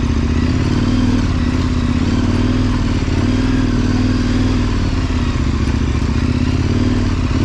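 KTM 1090's V-twin engine running steadily as the motorcycle is ridden, its pitch rising and falling a little.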